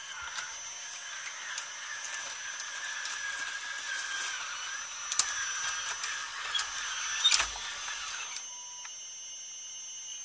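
Electric hydraulic pump of a 1:14 scale RC hydraulic excavator whining steadily as the boom and bucket are raised. Its pitch wavers under load, with two sharp clicks about five and seven seconds in. The whine cuts off just after eight seconds in.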